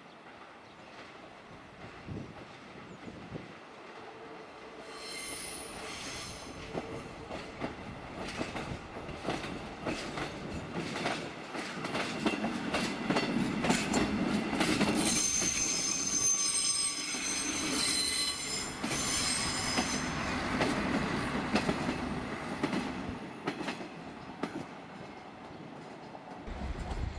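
A diesel railbus rolling over station points, its wheels clicking over rail joints and squealing in high-pitched tones on the turnouts. The sound grows as it passes close, loudest about halfway through.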